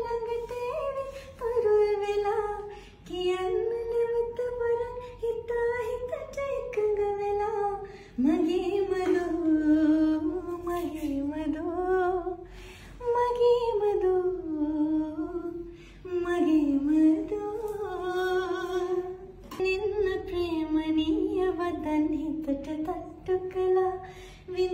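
Background song: a woman singing a slow melody in held, gliding notes.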